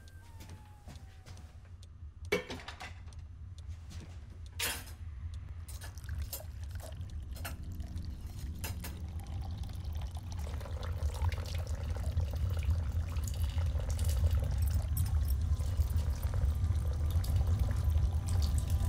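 Water running and pouring at a kitchen sink, with a few scattered light knocks, over a low rumbling drone that grows steadily louder.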